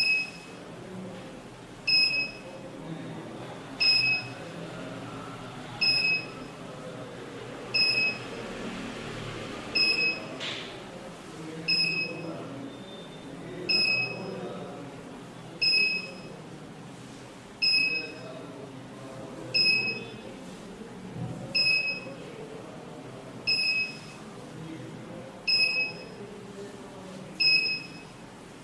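Active 207 burglar alarm panel's buzzer giving short, high beeps at an even pace, about one every two seconds, fifteen in all.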